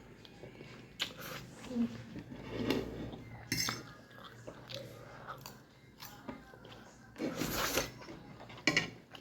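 Utensils clinking and scraping against a dish during a meal: a handful of short, separate knocks, with a longer, noisier sound a little past seven seconds in.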